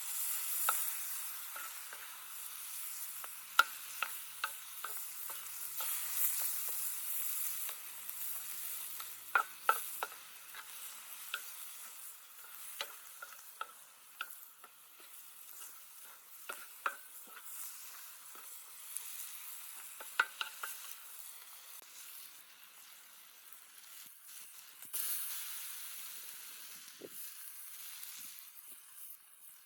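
Food sizzling as it fries in a pan while it is stirred, with a spatula or spoon knocking and scraping against the pan many times.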